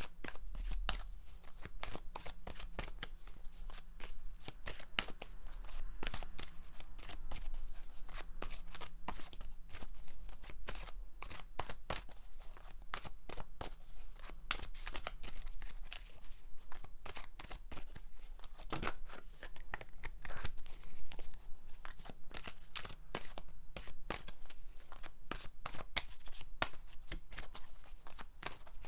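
Tarot cards being shuffled by hand: a steady run of quick card clicks and flicks.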